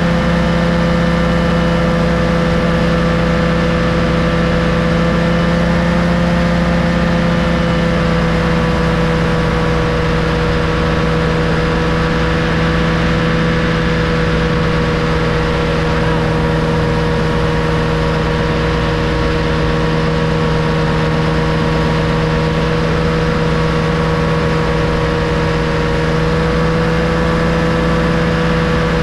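Tandem paramotor trike's engine and caged propeller running at a steady cruise in flight: a constant, even drone that holds one pitch.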